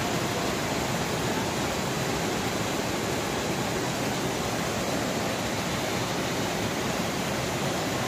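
Dudh Dhara waterfall, a drop of about 10 m on the Narmada river, giving a steady, even rush of falling water.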